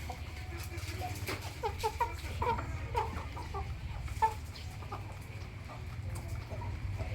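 Domestic chickens clucking in a flock with many short, quick clucks, busiest in the first half, plus a few sharp ticks. A low steady rumble runs underneath.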